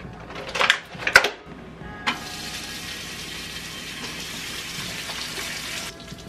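Two sharp knocks, then pieces of meat sizzling steadily in a hot frying pan on an electric stove; the sizzling stops abruptly near the end.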